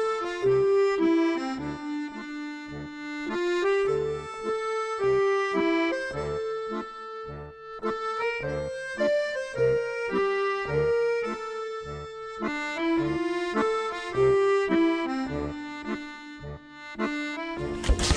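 Accordion music: a lively melody over a regularly pulsing bass line. A brief burst of noise comes in right at the end.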